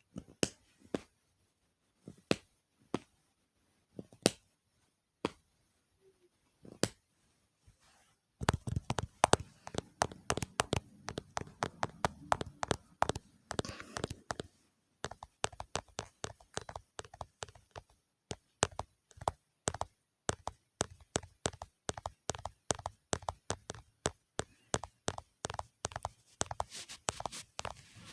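ASMR tapping and clicking: single sharp clicks about once a second at first, then, from about eight seconds in, fast, dense tapping that carries on to the end.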